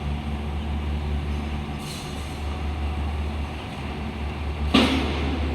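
Heavy construction machinery's diesel engine running steadily with a low drone. Near the end comes a sudden, short, loud burst of noise.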